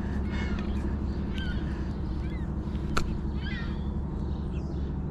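Birds calling in short chirps over a steady low hum, with one sharp click about three seconds in.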